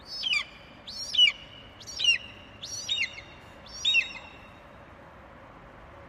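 Budgerigar calling: five short chirps about a second apart, each sliding down in pitch, ending a little past halfway.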